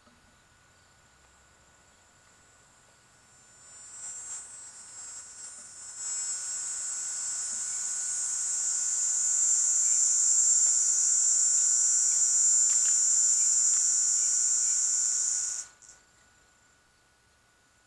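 A cicada's high buzzing song: it starts a few seconds in, swells to a loud steady drone, then cuts off abruptly near the end.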